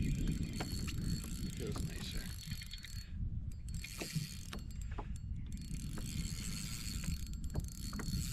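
Fishing reel being cranked, its gears whirring and clicking as line is retrieved, over a steady low rumble.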